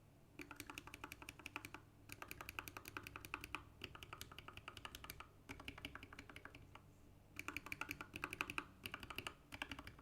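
Typing on a GK64x mechanical keyboard with Krytox-lubed Alpaca linear switches mounted north-facing under Cherry-profile HK Gaming keycaps: fast runs of keystrokes, about ten a second, broken by short pauses. The keycaps rub on the north-facing switch housings, an interference that makes the keystrokes sound strange.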